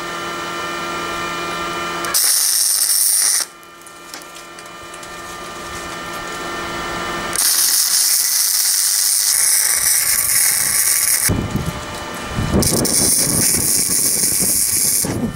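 Wire-feed (MIG-type) welder arc crackling and hissing while welding steel, in three runs: a short one about two seconds in, a longer one of about four seconds in the middle, and another near the end. A steady hum fills the gaps between runs.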